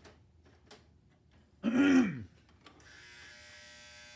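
A man gives a short grunt about two seconds in; then a Lionel #51 switcher's motor starts a steady electric buzz when track power is applied. The locomotive just makes the noise without running, a sign of a fault still to be repaired.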